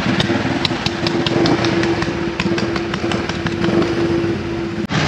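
A veteran single-cylinder motorcycle engine, the 1912 Triumph with an overhead inlet valve, catching on a run-and-push start and pulling away, its sharp exhaust beats coming about four or five a second over a steady engine drone.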